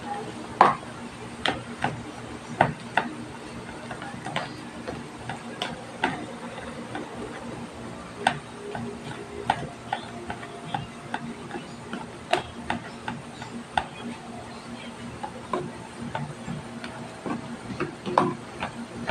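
Plastic spatula scraping and knocking against a stainless-steel perforated colander while mashing boiled potatoes: irregular sharp clicks and taps, roughly one or two a second, over a steady low hum.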